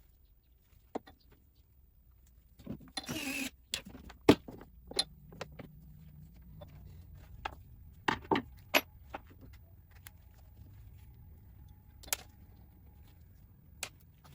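Scattered clicks, taps and clatter of small hard parts and tools being handled during pump housing work, with a short rustling burst about three seconds in and a faint low hum underneath.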